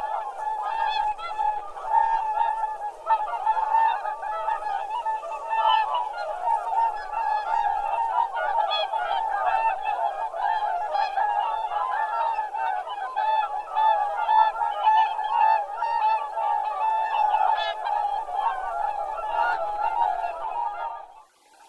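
A large flock of geese honking, many calls overlapping without a break; it cuts off suddenly near the end.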